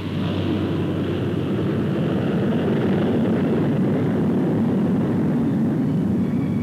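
Turboprop engines and propellers of a C-130 Hercules running at high power as it moves across snow: a loud, steady rushing noise that grows a little louder over the first couple of seconds.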